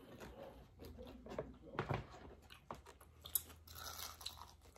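Faint chewing and biting into crispy fried chicken: soft crunches and wet mouth sounds, with one sharper crunch about three and a half seconds in.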